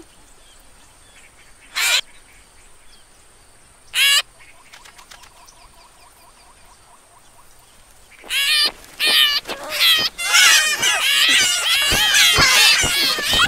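Cartoon vulture chicks in a nest: three short, sharp sounds about two seconds apart, then from about eight seconds in a dense chorus of rapid, wavering high cheeps. The cheeps are begging calls, made with beaks raised and open.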